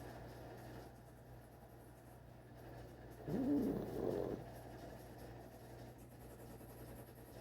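A sleeping pet snoring: one pitched, wavering snore about a second long comes a little over three seconds in, with quieter breathing before and after.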